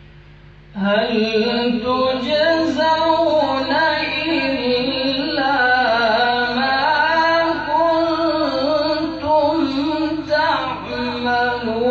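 A male qari reciting the Quran in the melodic tajweed style. A single voice comes in about a second in and draws out long, ornamented notes that rise and fall.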